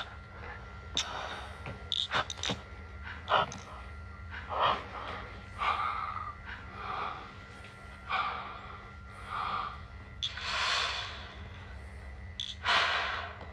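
A man breathing heavily through an oxygen mask: a run of breaths in and out, one every second or two, with a few short clicks in the first few seconds.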